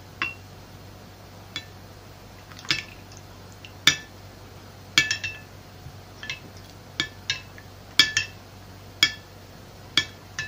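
A metal spoon clinking against a glass dish while stirring a runny sauce: sharp, irregular clinks, about one or two a second, each with a brief ring.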